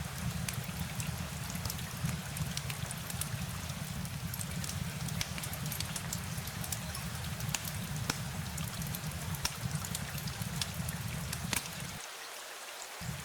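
Steady rain falling, with many sharp, separate drop ticks over an even hiss and a constant low rumble. The low rumble cuts out for about a second near the end while the rain carries on.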